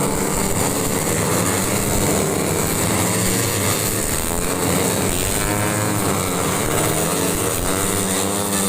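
Tuned 150 cc four-stroke underbone racing motorcycles running on a race circuit, their engine note rising and falling as they rev and pass.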